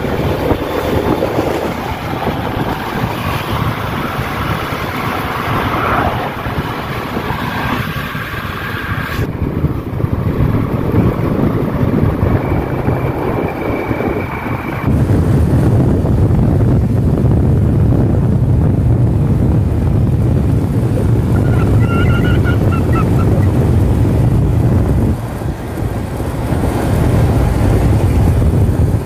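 Motorcycle on the move, its engine running under heavy wind noise on the microphone. The sound changes abruptly twice, about nine and fifteen seconds in, and is louder and deeper after the second change.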